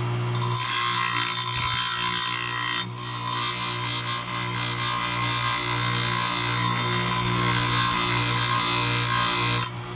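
Powered grinding wheel square-grinding a chainsaw chain cutter tooth, with sparks flying: a steady, shrill grinding hiss over the wheel motor's hum. It starts just after the opening, dips briefly about three seconds in, and stops abruptly near the end as the wheel comes off the tooth.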